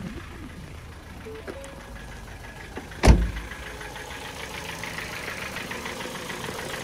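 Ford Focus 1.6 petrol four-cylinder engine idling just after start-up, with a fast, even tick from the valve lifters. A car door slams shut about three seconds in, the loudest sound, and the ticking grows clearer toward the end.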